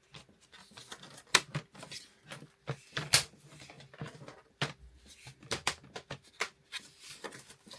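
Plastic storage basket being handled and pressed together: a string of irregular plastic clicks and knocks, with two sharp snaps about a second and a half and three seconds in.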